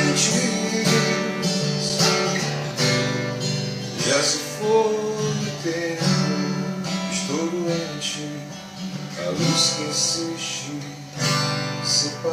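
Acoustic guitar strummed in a steady rhythm, with a gliding melody line over the chords.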